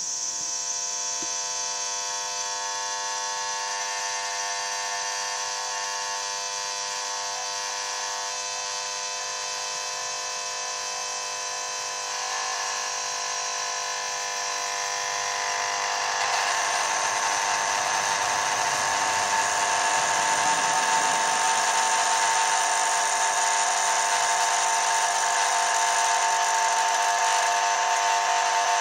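Steady electrical buzz of a lamp ballast, a fluorescent-type ballast powering an old high-pressure sodium lamp, growing louder about halfway through.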